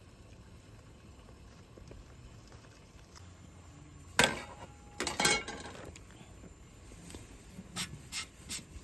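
Eggs frying quietly in a pan on a gas camp stove. A sharp knock comes about four seconds in, two more follow a second later, and three light clinks come near the end.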